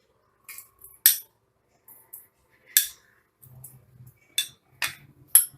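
A metal spoon clinking against a metal basin as ingredients are spooned into the crumbled puttu. The clinks are sharp and spaced out, with three coming quickly together near the end.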